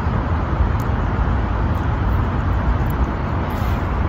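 Steady low rumble with an even hiss over it: outdoor city background noise, with no single event standing out.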